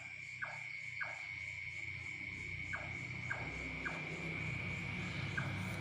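Nightjar (cabak) calling: short notes that fall in pitch, given in threes about half a second apart with a pause between groups. A steady high insect trill runs underneath.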